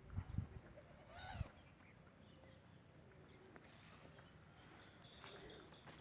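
A duck calling faintly, once about a second in and more faintly again near the end, against near silence.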